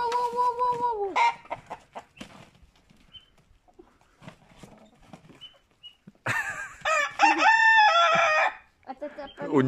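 Roosters crowing: one long crow ends about a second in, and a second crow starts about six seconds in and lasts about two seconds. Soft, scattered clucking comes between the two crows.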